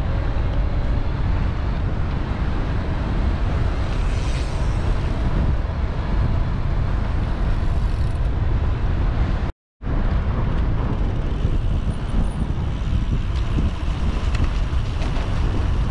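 Wind rumbling on the microphone of a moving e-bike, mixed with road and traffic noise from the street. The sound cuts out for a split second about ten seconds in.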